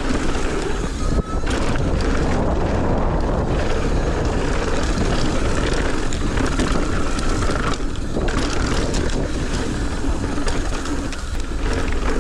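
Mountain bike rolling fast down a dry dirt trail: a steady rush of wind on the microphone mixed with tyre noise on the dirt, with a brief dip about a second in.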